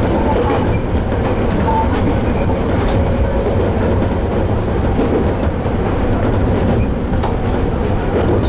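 Toyama Chiho Railway Tateyama Line train running along the track: a steady low rumble with occasional faint wheel clicks.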